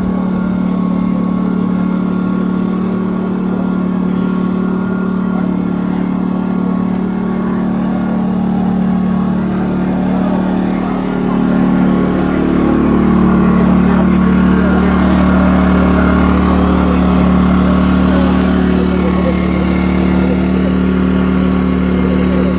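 An engine running at a steady pitch, a constant hum that grows a little louder about twelve seconds in.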